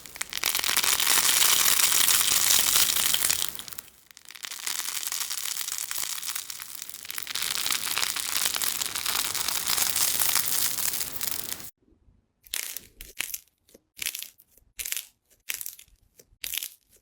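Crunchy slime being squeezed and pressed, giving a dense, continuous crackling. Near the end it changes to short separate crunches, about three a second, with quiet gaps between.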